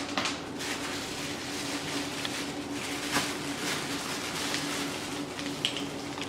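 Handling noise of a collar-microphone kit being unpacked from its leather pouch: ongoing rustling with a few light clicks, over a steady low hum.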